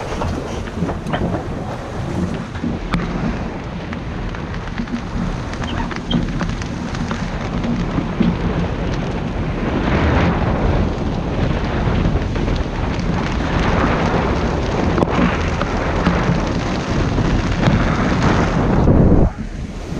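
Wind buffeting the microphone over the rush of the sea as a sailing yacht moves through rough water. It is a dense, rumbling noise that grows louder in gusts past the middle and cuts off abruptly near the end.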